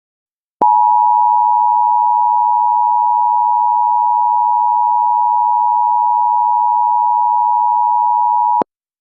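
Emergency Alert System attention signal: a loud, steady two-tone electronic alarm, two close pitches sounded together. It starts sharply about half a second in and cuts off abruptly after about eight seconds.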